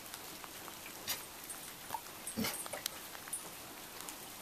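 Chocolate Labrador retriever whimpering briefly, once about two and a half seconds in, a frightened sound from a dog afraid to come past roofing materials. A few soft ticks around it, one sharp tick about a second in.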